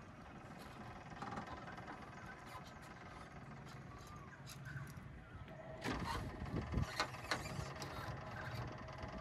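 Small outboard motor running slowly with a steady low hum. About six seconds in, a run of louder sharp noises begins.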